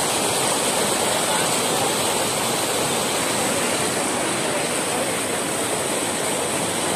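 Muddy floodwater rushing over a submerged road: a steady, unbroken rush of fast-flowing water.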